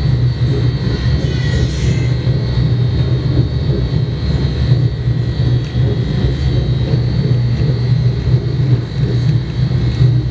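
A steady, loud, low mechanical drone with a thin, even high whine above it, unchanging throughout.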